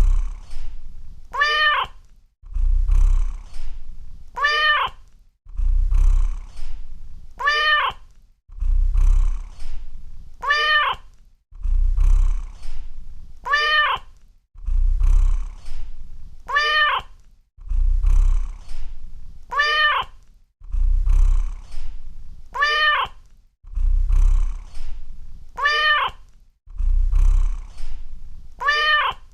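Domestic cat alternating a low purr with a short meow that rises and falls in pitch, repeated evenly about every three seconds, ten meows in all.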